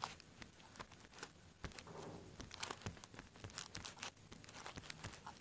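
Faint, irregular taps and clicks of fingers typing on a smartphone's touchscreen keyboard, one letter at a time.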